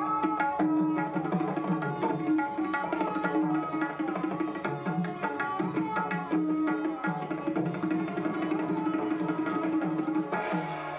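Hindustani classical music for Kathak: tabla playing a steady stream of strokes under a melody line that bends in pitch, over a held low tone.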